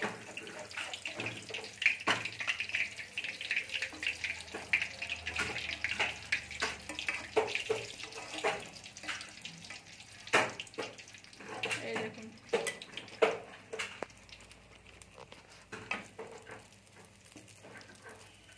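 Puri dough deep-frying in hot oil in an aluminium kadai: a dense sizzle and crackle for the first several seconds, then sparser pops and clicks that thin out near the end.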